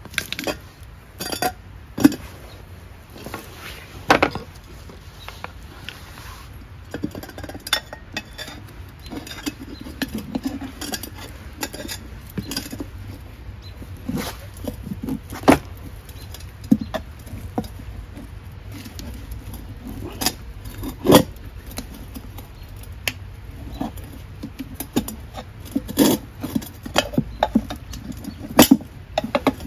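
Metal hand tools, a flat-head screwdriver and a hammer, clinking and knocking against a small ATV wheel as the tire bead is levered onto the rim. The strikes come at irregular moments, with a few sharper knocks now and then.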